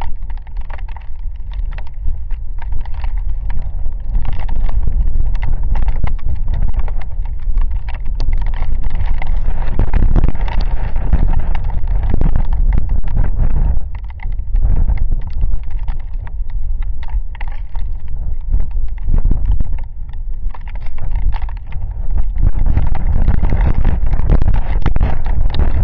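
Rainstorm with gusting wind buffeting the microphone: a loud low rumble that swells and eases in gusts, easing briefly about a third of the way in and again about three quarters through, under a dense patter of raindrops hitting the camera.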